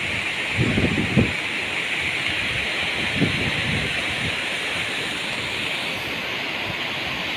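Steady rushing hiss of water pouring over a waterfall, with brief low gusts of wind buffeting the microphone about a second in and again around three seconds in.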